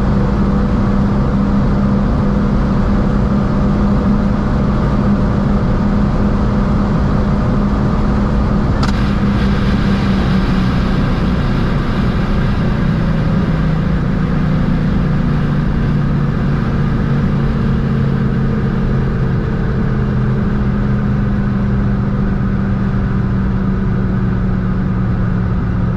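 Inside the cabin, the turbocharged 1.6-litre four-cylinder of a tuned Mini Cooper S R56 runs at high speed amid steady wind and road noise. The car is coming down from its top speed and the engine note drops as the revs fall. There is a brief sharp click about nine seconds in.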